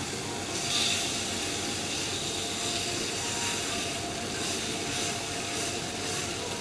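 Chateaubriand beef fillet sizzling on a hot steel teppanyaki griddle, a steady hiss that swells louder about a second in as a piece is turned, over a faint steady hum.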